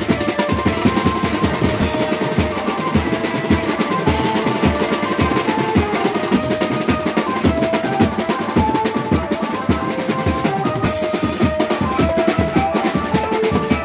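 Banjo party band playing fast, dense drumming on snare drums, a large side drum and a stand of small metal-shelled drums, over a short-note keyboard melody.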